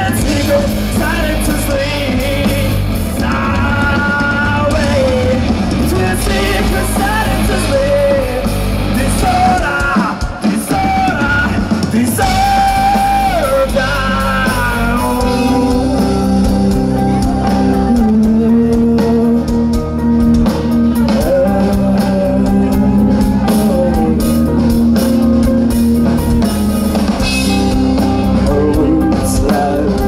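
Live rock band playing loudly, with a lead singer over guitar and drums. About halfway through, the sung line gives way to long held chords.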